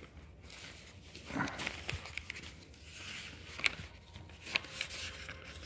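Newspaper pages rustling and crinkling as they are grabbed and crumpled by hand, with a few sharp crackles of paper from a little past the middle on.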